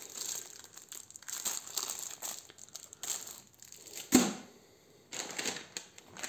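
Clear plastic packaging crinkling as it is handled. About four seconds in there is a single sharp thump, the loudest sound, then a second of quiet before a plastic bag starts rustling.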